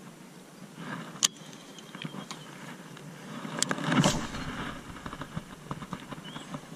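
A baitcasting rod and reel being cast from a small boat: two sharp clicks, then a rush of handling and wind noise about four seconds in as the rod swings through the cast, followed by light, rapid ticking.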